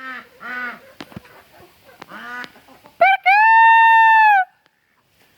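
Chickens clucking, then a rooster crows about three seconds in: a few quick notes and a long, loud held note that falls away at the end.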